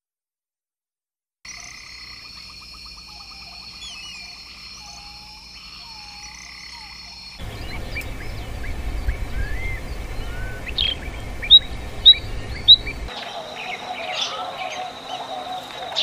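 After a second and a half of silence, a frog chorus sets in: a steady high-pitched drone with a fast pulsing trill. It cuts to a low rumble with scattered songbird chirps, the loudest being three sharp chirps about half a second apart. It then changes to a steadier chorus with a wavering call.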